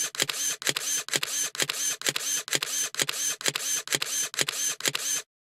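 Camera shutter firing over and over in a steady burst, about two frames a second. Each frame is a sharp click with a short mechanical whirr after it. The run stops abruptly near the end.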